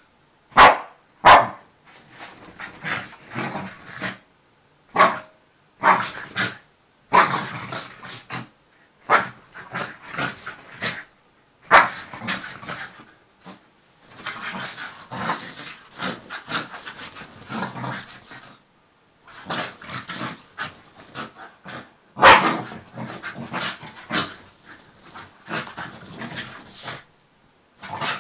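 Two Scottish terriers play-fighting: bursts of rough growling and barking come and go in quick succession, with a few sharp, loud barks standing out.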